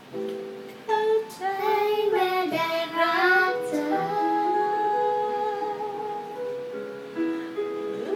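A young girl singing a Thai pop ballad over a soft instrumental accompaniment. Her voice comes in about a second in, bends through a phrase, then holds one long note through the middle.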